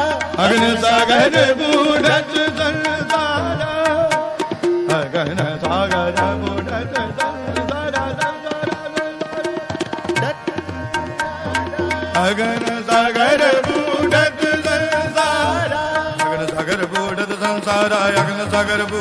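Sikh shabad kirtan music: tabla strokes keeping a steady rhythm under a held melody, in the instrumental passage between sung lines of the shabad.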